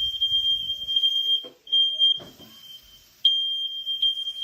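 Household smoke alarms sounding, set off by smoke in the house: one shrill, steady high tone. It drops out briefly about a second and a half in, goes faint for about a second, then comes back loud a little past three seconds.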